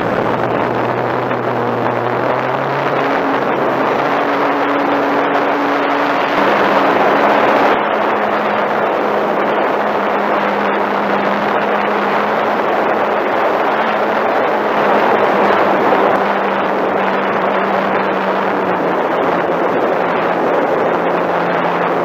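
Radio-controlled model airplane's motor and propeller running, heard from a camera mounted on the plane, under a loud steady rush of wind over the microphone. The motor's pitch steps up about three seconds in as the throttle opens, then settles a little lower and holds steady.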